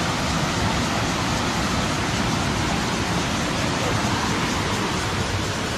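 Steady rush of water over river waterfalls, an even, unbroken noise.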